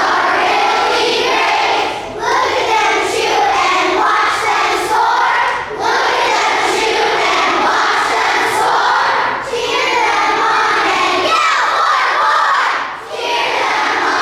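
A large crowd of schoolchildren shouting a team cheer in unison, loud phrases repeated with brief breaks about every three to four seconds.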